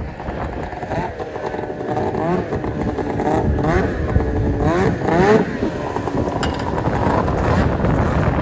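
Snowmobile engine revving up and down several times in quick succession, then settling to a steadier run, with wind noise on the microphone.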